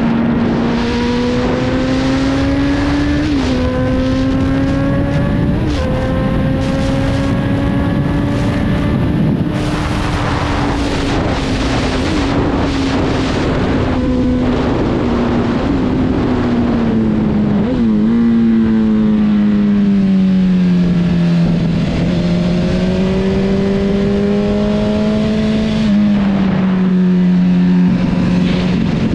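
Honda CB1000R's inline-four engine running under way, its pitch climbing with a sharp drop at an upshift a few seconds in, then falling steadily for about ten seconds as the bike slows for a tight curve before holding lower. Wind buffets the helmet-mounted microphone in the middle.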